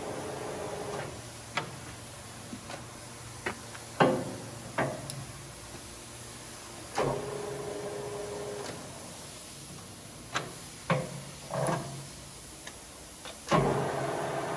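Sermac Brunswick lathe: a series of separate mechanical clunks and clicks as the headstock controls are worked, with short stretches of steady hum between them. Near the end the spindle starts with a loud clunk and keeps running.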